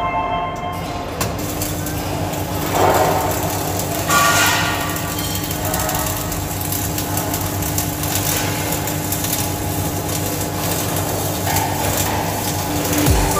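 Flux-cored arc welding: the welding arc crackling and sputtering steadily, with a steady low hum underneath.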